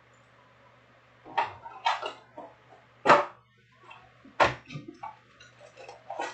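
Topps Chrome trading card packs and their cardboard box being handled: a run of sharp crinkles and knocks of foil wrappers and cardboard, starting about a second in, the loudest about three seconds in.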